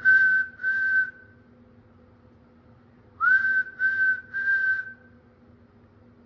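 A person whistling two sets of three short, clear notes on one pitch, the first note of each set sliding up into place, used to coax emu eggs into wiggling. A steady low hum runs underneath.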